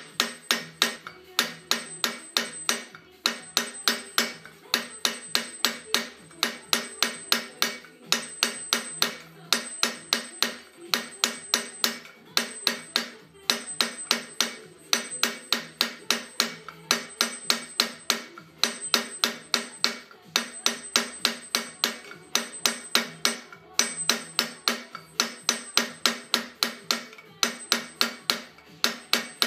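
A hammer striking silver in fast, even blows, about three to four a second, each blow ringing briefly.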